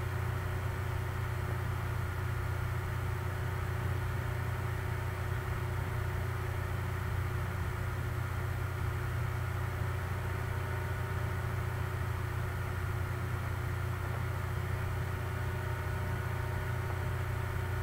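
A steady low hum with a few faint steady tones above it, unchanging throughout.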